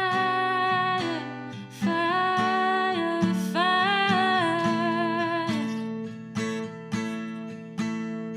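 Live acoustic song: a singer holds long sung lines over a strummed acoustic guitar. The voice stops about five and a half seconds in, and the guitar strums on alone in an even rhythm of roughly two strums a second.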